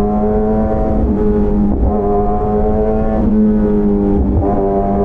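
Superbike exhaust running loud at high, nearly steady revs, its pitch easing and shifting slightly every second or so.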